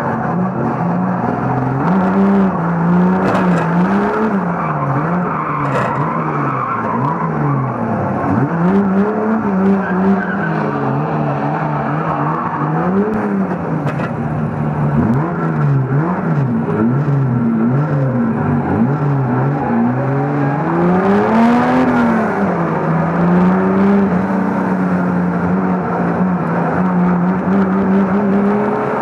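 Banger racing car's engine heard from inside the car, revving up and down again and again as it is driven hard around the track, with a few sharp knocks of metal contact.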